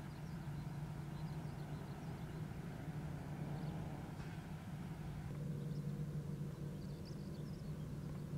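A steady low mechanical drone. A second, higher steady tone joins it about five seconds in.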